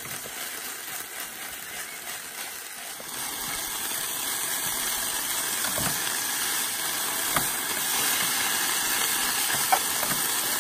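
Pea sprouts and bacon sizzling in a frying pan as they are stir-fried with metal tongs. The hiss grows louder a few seconds in, and there are a few light clicks of the tongs against the pan.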